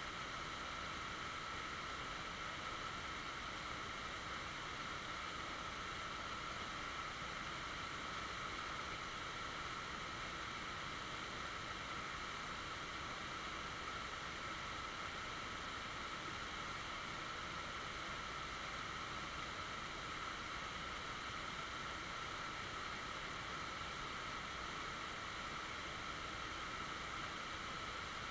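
Shallow rocky stream running over stones, a steady, even hiss of water with no change throughout.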